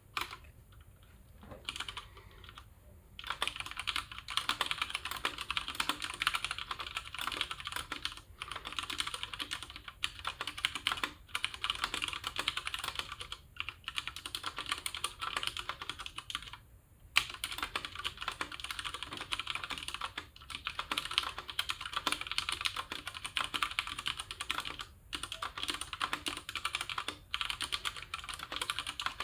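Ducky One 2 TKL mechanical keyboard with stock, unmodified Cherry MX Brown tactile switches being typed on. A few scattered keystrokes in the first three seconds, then fast continuous typing broken by a few short pauses.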